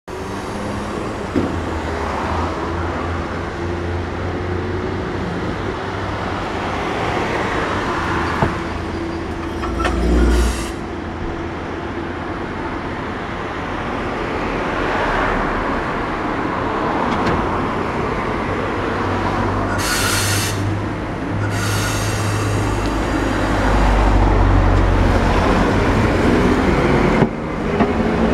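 A Tosaden Kōtsū streetcar and road traffic running through a level crossing, with a steady rumble throughout. There is a short hiss about twenty seconds in, and a rising whine near the end.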